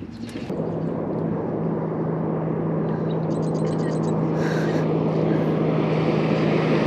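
Small boat outboard motor starting to run about half a second in, then a steady low hum with water and wind noise slowly growing louder. A quick run of light clicks comes about three seconds in.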